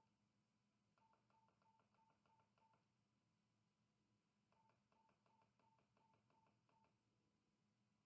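Faint keypad beeps from a BKR 5000 handheld radio as a label is typed in: short, evenly paced beeps about three a second, in two runs of six or seven beeps.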